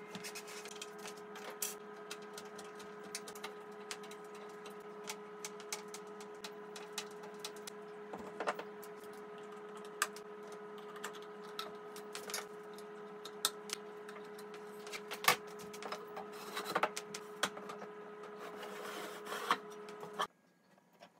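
Scattered clicks, taps and knocks of particleboard panels and fittings being handled and pushed together during flat-pack desk assembly. Under them runs a steady mechanical hum of several pitches, which cuts off suddenly near the end.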